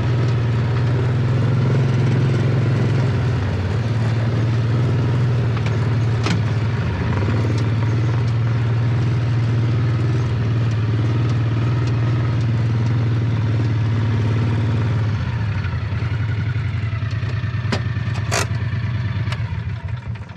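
Utility vehicle's engine running steadily as it drives along a gravel trail, with a few sharp knocks and rattles from bumps. The engine note eases about three quarters of the way through as it slows.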